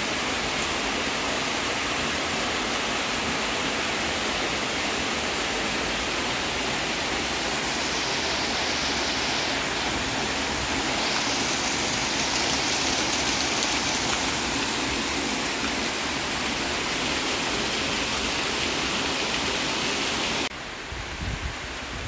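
Heavy rain falling steadily, with water pouring off a roof and runoff rushing along the ground, a dense unbroken hiss that swells louder in the middle. Near the end it drops suddenly to a quieter rain hiss with low rumbles underneath.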